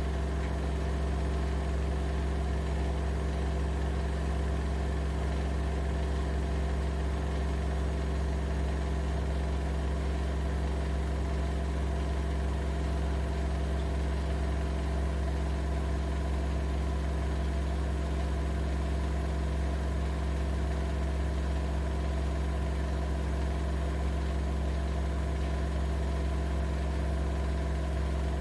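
AEG Lavamat L6FB67490 front-loading washing machine running steadily: a constant low hum with several steady tones above it.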